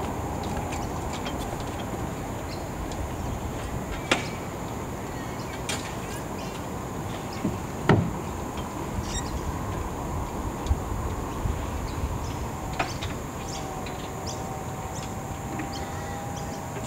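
Scattered knocks and clicks of hands working the masts and rigging fittings on a small wooden sailboat, the loudest knock about eight seconds in, over a steady outdoor hiss with a thin high drone.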